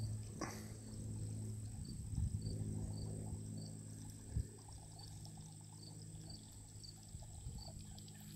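Outdoor ambience: a steady low hum, with faint high chirps repeating evenly about every half second and a couple of soft knocks, one about four seconds in.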